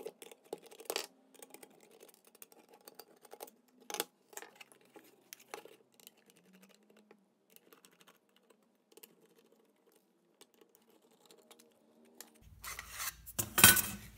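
Small screwdriver clicking and scraping on the screws of a Lepai LP-2020A+ mini amplifier's metal case as its panels are unscrewed, in scattered faint ticks. Near the end comes a louder clatter of metal as the case comes off the circuit board.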